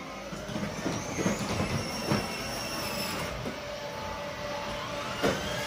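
Children's battery-powered ride-on toy car driving across a wooden floor: its electric motor and gearbox whine while the plastic wheels rumble, and the whine rises in pitch near the end.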